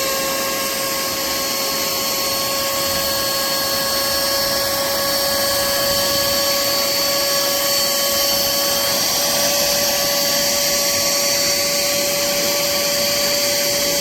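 Pemacom cordless handheld vacuum cleaner running steadily, its motor giving a high, even whine over the rush of air.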